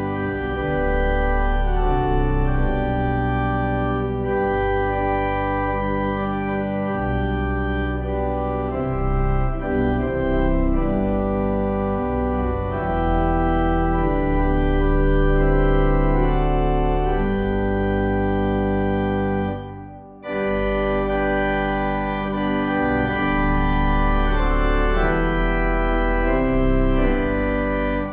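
Organ playing slow, held chords that change every second or two. It stops briefly about twenty seconds in, then carries on.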